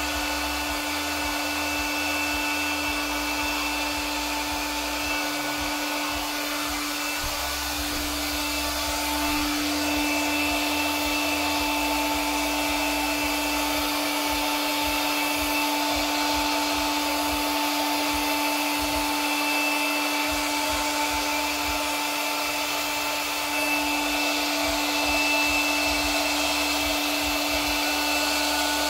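Small electric blower motor running steadily, a constant whine over a rush of air, getting a little louder about a third of the way in and again near the end.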